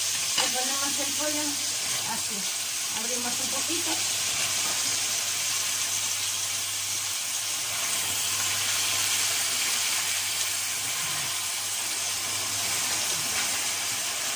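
Steady sizzle of chopped onion, carrot and pepper frying in a stainless steel pan, with raw chicken drumsticks being put in among the vegetables in the second half.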